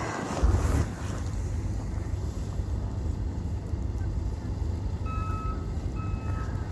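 Wind buffeting the microphone in a steady low rumble. About five seconds in, a vehicle's reversing alarm starts, short beeps a little under a second apart.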